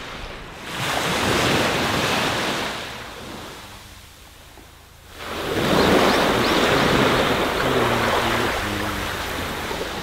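Sea waves washing onto a sandy beach: one wave surges about a second in and dies away, then a second, louder surge builds about five seconds in and keeps going.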